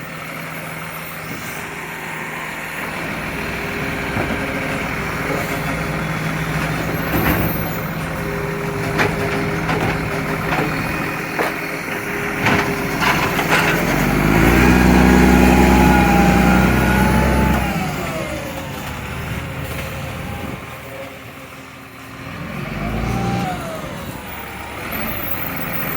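Recycling garbage truck's engine running with an exhaust leak. It revs up loudly for a few seconds about halfway through, drops back, and rises again briefly near the end.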